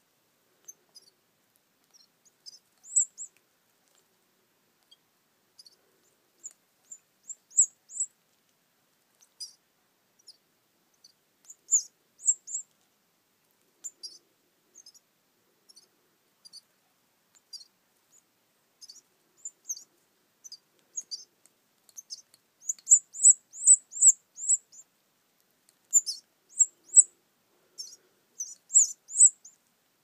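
Baby canary's high-pitched begging cheeps as it is hand-fed: short peeps, scattered at first, then coming in quick runs in the last third.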